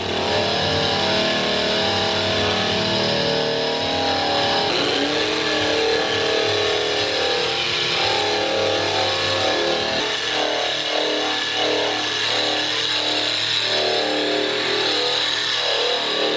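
Handheld electric drum sander running against sheet steel, stripping paint from a car door skin: a steady grinding whine with a high hiss that holds throughout, its tone shifting as the wheel is worked along the panel.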